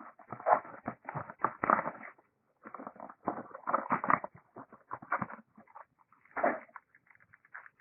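A sealed trading-card box being opened and its cards handled: irregular rustling and crinkling of wrapping, cardboard and cards, in uneven bursts with short pauses.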